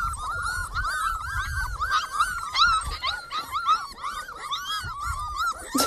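A litter of young puppies whining and squeaking together: many short, high, rise-and-fall cries overlapping, several a second, without a break.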